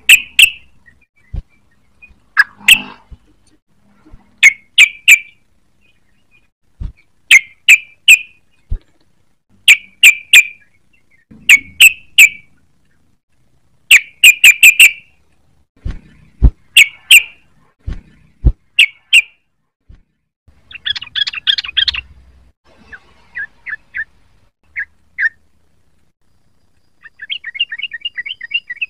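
Yellow-vented bulbul song: bright, sharp phrases of two to four quick notes repeated every second or two, breaking into faster chattering runs about two-thirds of the way through and again near the end. A few sharp clicks fall between the phrases.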